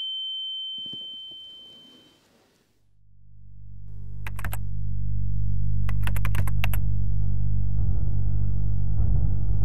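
Film sound design: a high steady tone fades out, then a low droning hum swells in and holds. Two short bursts of rapid clicking come about four and six seconds in.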